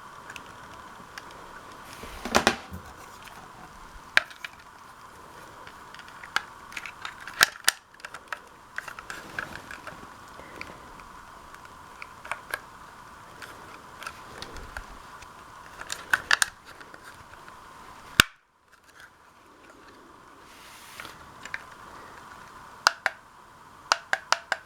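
Irregular sharp clicks and knocks, some in quick clusters, over a faint steady hum.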